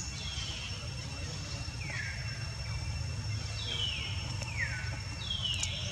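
Baby monkey giving five short, high-pitched calls, each sliding down in pitch, spaced about a second apart.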